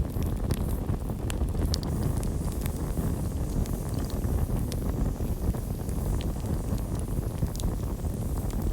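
Campfire burning: a steady low rumble of flames with scattered, irregular sharp crackles and pops.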